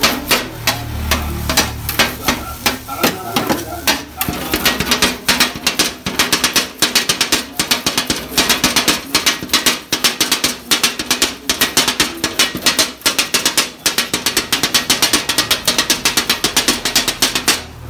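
Kottu roti being chopped with two steel blades on a flat-top griddle: a fast, steady run of metallic clacks of the blades striking the hot plate, picking up speed a few seconds in.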